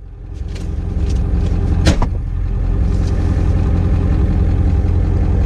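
A vehicle engine running with a steady low rumble that builds up over the first second, with one sharp click about two seconds in.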